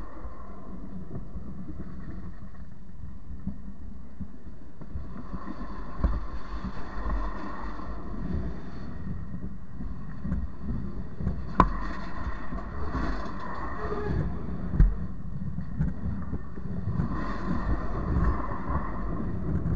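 Freight cars rolling directly over the rails, heard from between them: a steady low rumble of steel wheels on the track, with a couple of sharp clanks near the middle.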